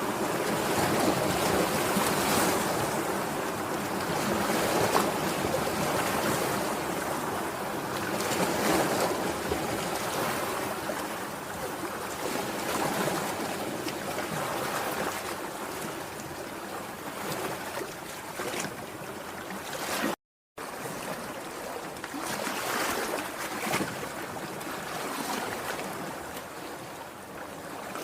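Sea waves washing onto the shore: a continuous surf that swells and eases every few seconds. The sound cuts out completely for about half a second roughly two-thirds of the way through.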